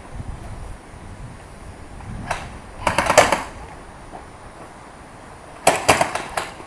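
Airsoft guns firing in quick bursts of sharp cracks: a single shot a little over two seconds in, a short burst around three seconds, and a louder burst near the end.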